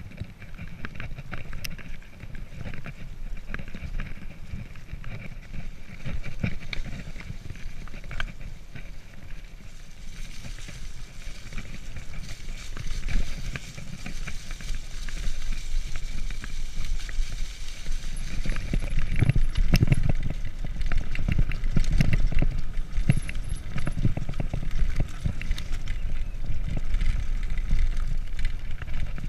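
Mountain bike riding down a dirt forest track: tyres crunching over dirt, stones and dry leaves, the bike rattling over bumps, with wind rumbling on the microphone. It gets louder and rougher about two-thirds of the way in.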